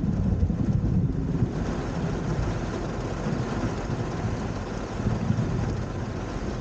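Thunder rumbling low over steady rain, loudest in the first second or so, then easing into the hiss of rain with a softer rumble about five seconds in.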